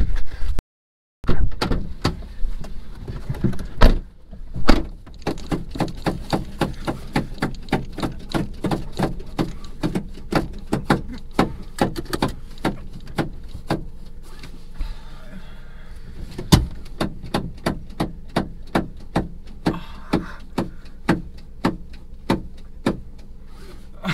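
Car indicator ticking steadily, about two ticks a second, inside a parked car's cabin, with a couple of louder thumps a few seconds in.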